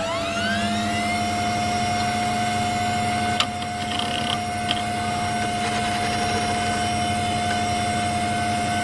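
A machine-like whine that spins up, rising in pitch over about the first second, then holds at one steady pitch over a low hum. A short click comes about three and a half seconds in.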